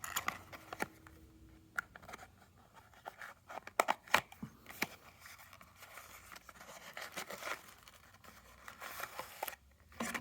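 A small cardboard box being opened by hand: flaps and packaging rustling and scraping, with scattered light clicks and taps as the contents are handled.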